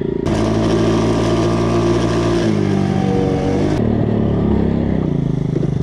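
Small engine of a three-wheeled motor trike running steadily while being ridden. Its pitch steps down about two and a half seconds in and shifts again near the end.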